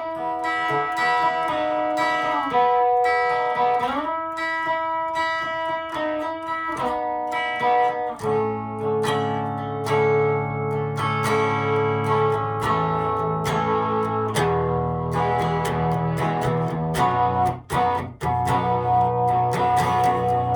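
Guitar playing: picked single notes with string bends, then fuller chords from about eight seconds in.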